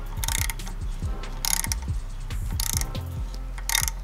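Ratchet wrench clicking in four short bursts about a second apart as it drives a thread tap into an aluminium oil pan.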